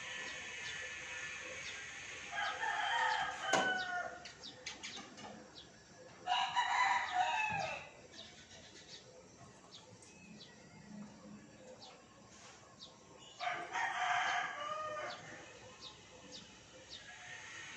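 Roosters crowing: three crows, each about a second and a half long, with scattered sharp clicks in between.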